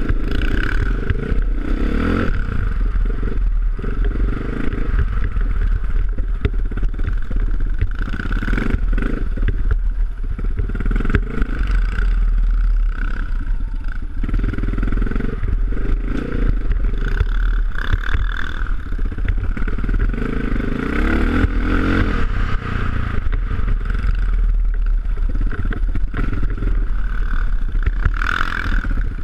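Vintage enduro motorcycle's engine running hard along a rough trail, its note rising and falling with the throttle, with clatter and knocks from the bike over bumps.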